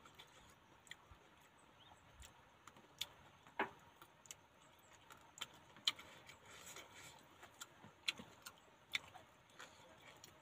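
Quiet eating by hand: scattered soft clicks and taps at irregular spacing as fingers pick food from a plate and the food is chewed.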